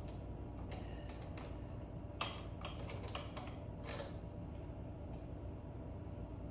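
A handful of light metallic clicks and taps from tools and parts being handled, the sharpest a little over two seconds in, over a steady low hum.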